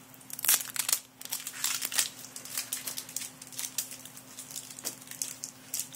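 Foil booster-pack wrappers crinkling and trading cards being handled, in a quick run of small crackles, busiest in the first second and again around two seconds in.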